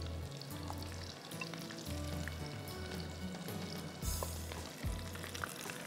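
Battered fish pieces deep-frying in hot oil in a frying pan, a steady sizzle and crackle that flares up briefly about four seconds in.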